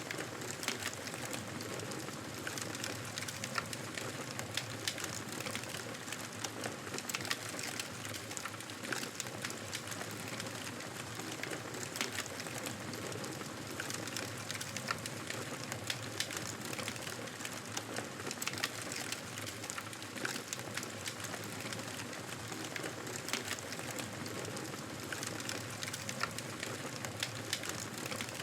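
Wood fire burning in a fireplace: a steady hiss of flames with frequent small crackles and pops.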